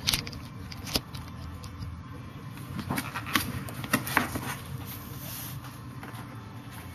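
Hands handling packaging while getting a new MacBook Pro out of its box: rustling with several sharp clicks and knocks, the loudest about a second in and a cluster three to four seconds in.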